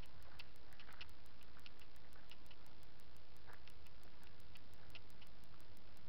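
A cheap action camera's own recording noise: a steady low hum with faint, very regular ticking about five times a second, and a few scattered small clicks.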